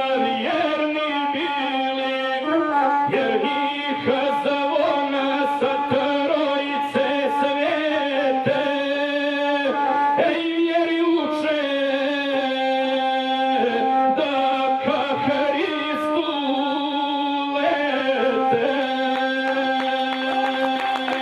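A gusle bowed to accompany a man singing epic verse in the guslar style. The instrument holds steady, level tones while the voice wavers and moves above it, with no break.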